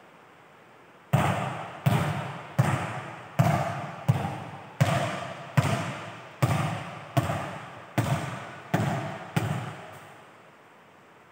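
A volleyball bounced again and again on a hard indoor court floor, about a dozen bounces a little under a second apart, each thud echoing in a large hall.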